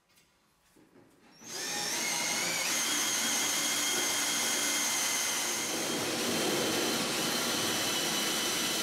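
Cordless drill running steadily as it bores into the sheet-steel radiator support of a truck. It starts about a second and a half in, after a faint tick.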